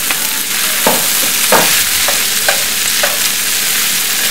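Metal spatula scraping and knocking against a stainless frying pan as mashed potato stuffing is stirred and turned, about five strokes, over a steady sizzle of hot oil.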